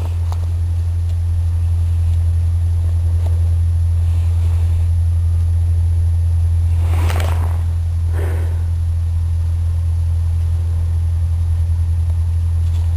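A loud, steady low rumble, with two short hissing sounds about seven and eight seconds in.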